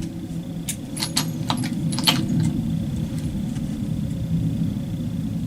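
Half a dozen light metallic clicks and clinks in the first two seconds, over a steady low rumble.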